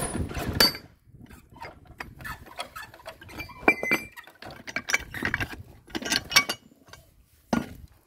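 Steel Sherman tank track parts and a hydraulic puller being worked and handled: irregular metal clinks and knocks, some ringing briefly. A low rumble stops with a sharp loud clack about half a second in.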